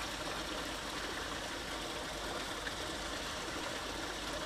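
Steady rushing noise of flowing water.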